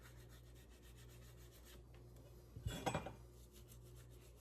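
Old toothbrush scrubbing corrosion off a brass faucet fitting: a faint, rapid rubbing, with a brief louder scrape just under three seconds in.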